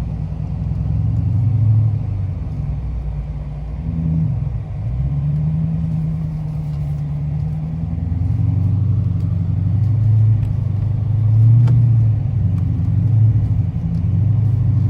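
Dodge Challenger R/T's V8 engine running as the car is driven, a deep steady hum whose pitch climbs about five seconds in as the throttle is opened, then swells again later on.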